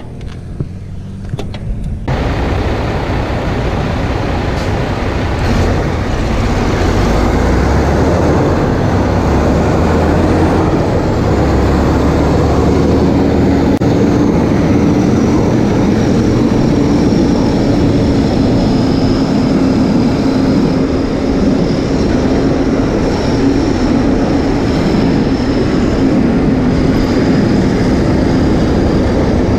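Road traffic heard from a moving bicycle: a steady, loud rush of passing vehicles and riding noise. It gets louder about two seconds in, and a steady hum with a faint high whine runs through the second half as heavy trucks, including concrete mixers, pass close by.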